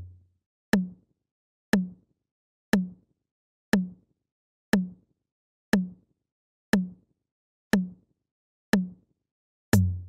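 Countdown-timer ticking sound effect: one sharp tick a second, each with a short low knock that dies away, marking each second counted down. Near the end comes a louder tick with a deeper low thud as the count reaches zero.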